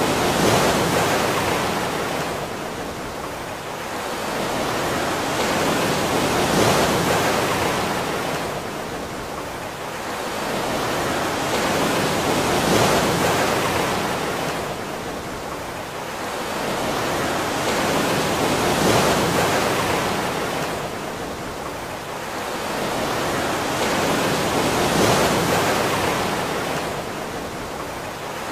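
Rushing water: an even hiss that swells and fades in a slow, regular rhythm, peaking about every six seconds.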